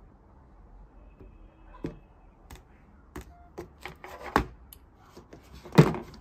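An irregular series of clicks, taps and rustles, busiest about two-thirds of the way in, with the loudest knock near the end.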